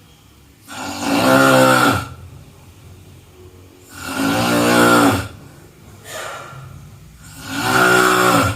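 A person snoring in a steady rhythm: three loud, pitched snores about three seconds apart, each lasting a little over a second. A fainter breath comes between the second and third.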